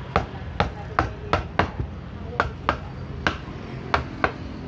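Kitchen knife chopping fish on a thick wooden chopping block: about ten sharp knocks at an uneven pace.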